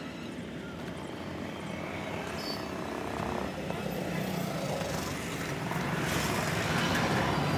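A motor vehicle engine running with a steady low hum, growing louder over the last couple of seconds.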